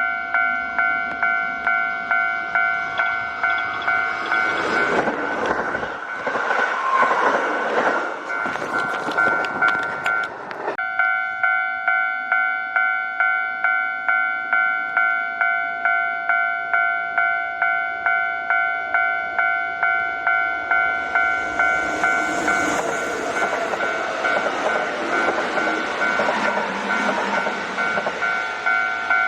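A Japanese railway level crossing's electronic warning bell rings in steady repeated strikes, about one and a half a second, while a Kintetsu train runs through the crossing about 4 to 10 seconds in. The bell drops out for a moment as that train clears, then rings on, and train noise rises over it again in the last third.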